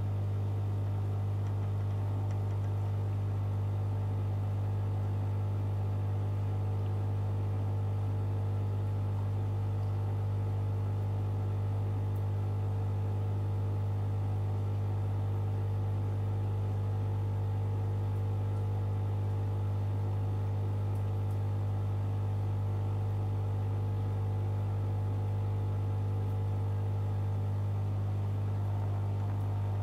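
Steady low electrical hum of aquarium equipment, with fainter higher overtones above it; it does not change.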